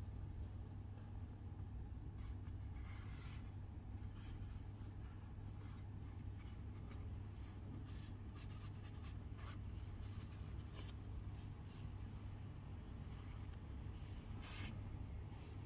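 Thin tissue paper rustling and crinkling in short, irregular crackles as it is handled and folded back by hand, over a steady low hum.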